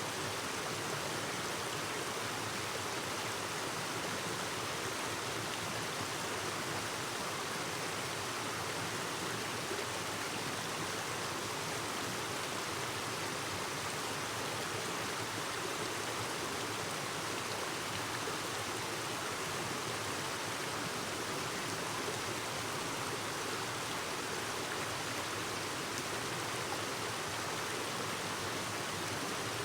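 Clear river babbling: a steady, even rush of flowing water that does not let up.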